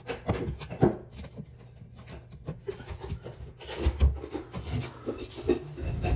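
New click-together floor planks being slid across an old wooden floor and pressed into place by hand: wood rubbing and scraping, with several knocks and a heavier thump about four seconds in.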